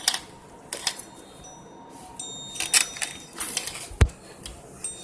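Metal parts clinking and clattering, with short ringing tones, as the worn engine bearing and tools are handled; one louder knock about four seconds in.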